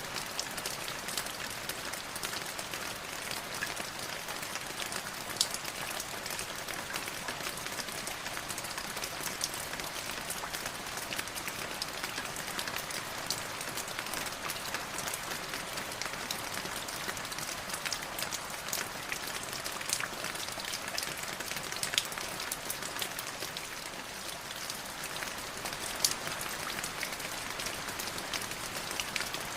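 Light drizzle falling steadily: a soft even hiss of rain with many small scattered drop ticks, a few sharper single drips standing out.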